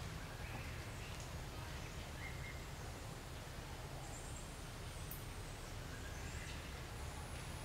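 Outdoor ambience: a steady low rumble with a few faint short chirps, and a thin high steady whine coming in near the end.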